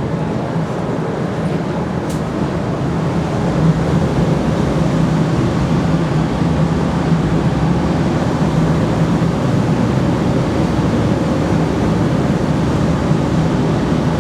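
A loud, steady mechanical hum with an even rushing noise over it, which cuts off abruptly at the end.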